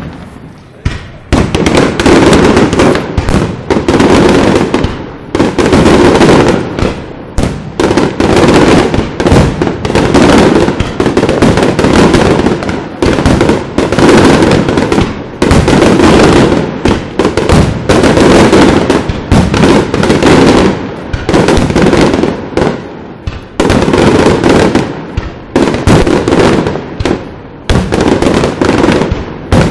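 Aerial fireworks shells bursting in a near-continuous barrage: rapid, overlapping bangs with only brief dips between clusters. The bangs are loud enough to reach the phone microphone's limit on the peaks.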